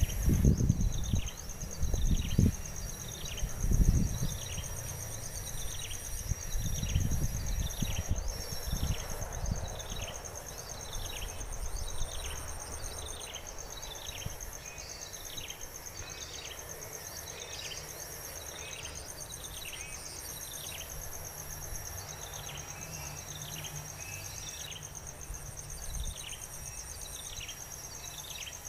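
Steady high-pitched buzzing of crickets or similar insects, with a short falling chirp repeated about once a second. Low rumbling thumps come in the first few seconds and again briefly around seven seconds in.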